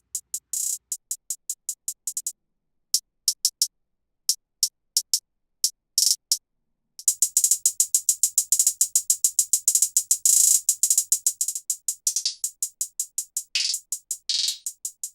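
Programmed trap hi-hat loops from a drum machine: crisp closed hi-hat ticks in stuttering, gapped patterns, then a dense fast roll from about halfway through, with a couple of longer open hi-hat swishes near the end.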